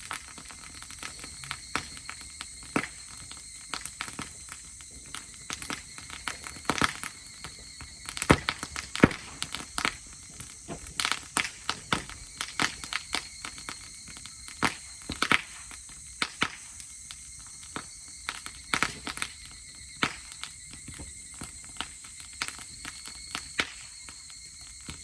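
Dry-grass campfire crackling, with irregular sharp pops and snaps, some loud.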